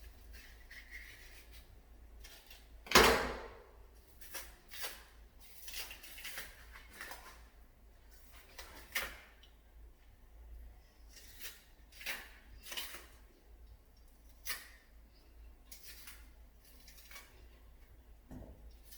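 Scattered light knocks, scrapes and rustles of hand food preparation, with one sharp knock about three seconds in, the loudest.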